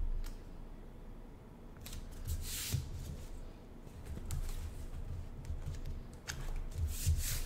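A thin clear plastic sheet being handled and folded over the edge of a cardboard frame, giving rustling swishes, the loudest about two and a half seconds in and again near the end, with a few light clicks and soft knocks of hands on the table.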